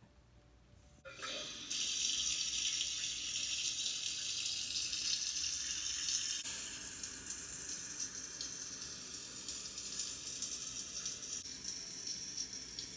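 Shower water running in a steady hiss, starting suddenly about a second in.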